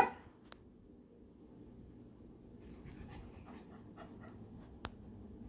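A puppy playing: one sharp yip right at the start, then after a quiet spell, soft whimpers and rustling from about halfway.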